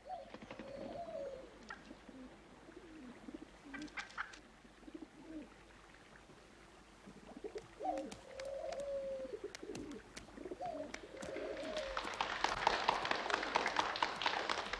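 White-crested black Polish chickens making drawn-out, wavering clucks and croons, a few calls at a time, while they peck at grain. About twelve seconds in, a dense, louder clatter of many quick clicks sets in and carries on to the end.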